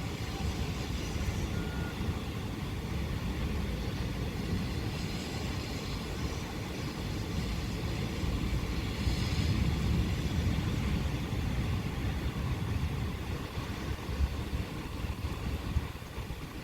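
Rain falling over a low, rolling rumble of distant thunder that swells about halfway through.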